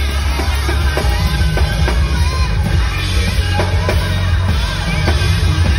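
A drum kit played live from the bed of a pickup truck, drums and cymbals hitting over loud backing music with a heavy, steady bass.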